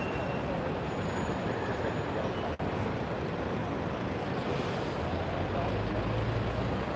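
Busy city street ambience: steady traffic noise with crowd hubbub. About five seconds in, a low engine rumble from a heavy vehicle grows in. The audio drops out for an instant about two and a half seconds in.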